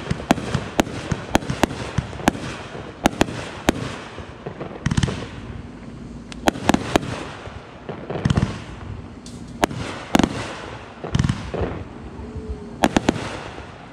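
World Class Fireworks 'Chasing Booty' consumer firework cake firing. For the first few seconds it gives a quick run of sharp cracks. After that come spaced shots, each a rushing launch followed by a loud breaking report.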